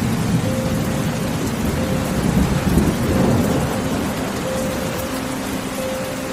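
Heavy rain falling steadily, with a low rumble that swells about two to three seconds in.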